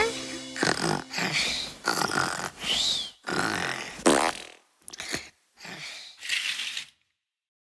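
Cartoon comic sound effects: a string of short noisy puffs, some with squeaky rising or falling pitch, as the rat character fidgets under a cloth.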